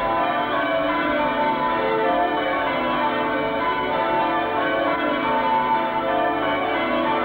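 Church bells ringing a continuous peal, many bells sounding over one another without a break: wedding bells.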